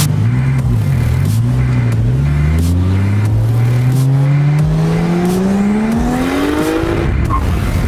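Fourth-generation Toyota Supra's inline-six accelerating hard. The engine note wavers briefly, then climbs steadily in pitch for about five seconds and cuts off about seven seconds in.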